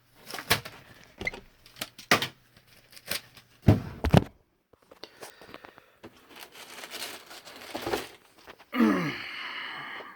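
Handling noises: a run of clicks and knocks with two heavy thumps about four seconds in, then paper rustling and crinkling, and a short falling squeak near the end.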